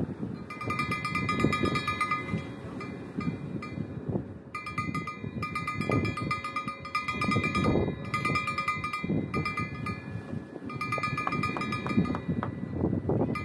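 A small bell on a fishing rod jingling in five bursts, each up to about two seconds long, with gusty wind and surf rushing underneath. A bell shaking like this is the sign of a fish tugging at the line.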